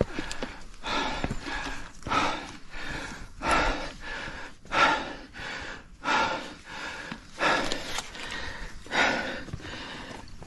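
Heavy, rapid breathing of a person climbing hard, one loud breath about every second and a half.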